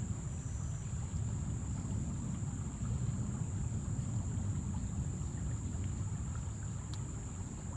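Wind buffeting the phone's microphone as a steady low rumble, with a thin, steady high-pitched insect buzz.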